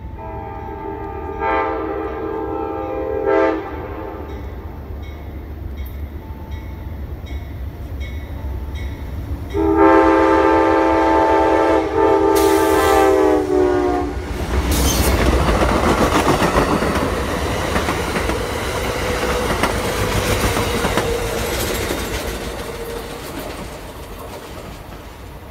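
Amtrak train 448's diesel locomotive sounds its multi-note air horn: a blast about a second in that lasts two seconds, then a long, louder blast from about ten seconds in that lasts four seconds and drops in pitch as the locomotive passes. The locomotive and its stainless-steel passenger cars then rush past with wheels clattering over the rail, and the sound fades near the end.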